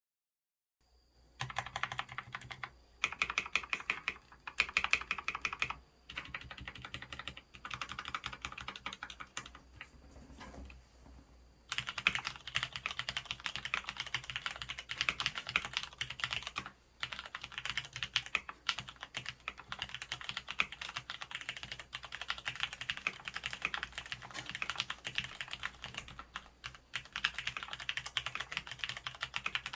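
Typing on a full-size mechanical keyboard with fully lubricated Cherry MX Red linear switches on stock springs and wire-levelled stabilizers. Keystrokes come in short bursts at first, then become continuous fast typing from about twelve seconds in.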